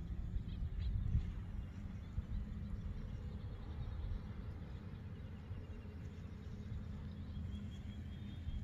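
Outdoor pond-side ambience: a low, uneven rumble throughout, with faint bird chirps near the end.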